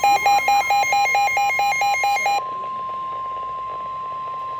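Rapid electronic alert beeping, about four to five beeps a second, that stops about two and a half seconds in. A single steady alert tone just above 1 kHz takes over: the 1050 Hz warning alarm tone of NOAA Weather Radio that comes before a broadcast warning.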